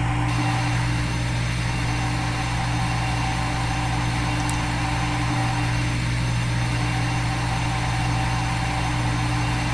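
Steady, unchanging hum of a CNC milling machine running, as played by a CNC machining simulator, with a constant low drone under an even hiss.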